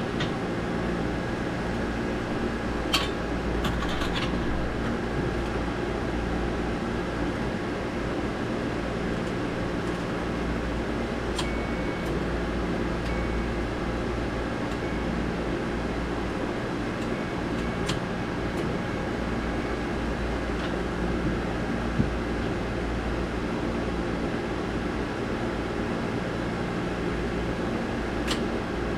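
Steady mechanical drone of running machinery, fan-like, with several steady tones and no change in speed. A few short sharp clicks sound over it, the loudest near the end.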